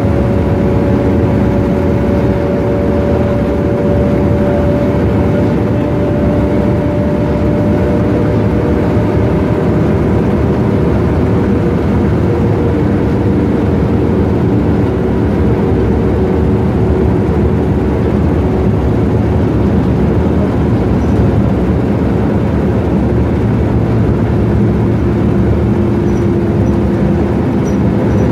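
BMC Belde 220-CB bus with a Cummins C220-20 straight-six diesel running steadily under way. The engine note drifts slowly in pitch, with no gear change or sharp event.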